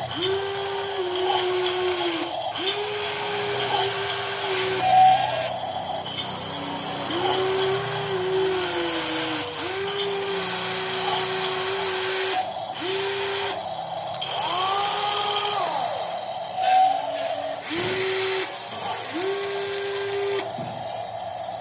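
Small electric motors of metal RC construction models whining in short runs of one to three seconds, starting and stopping about ten times at a steady pitch. A higher whine rises and falls briefly about 15 seconds in.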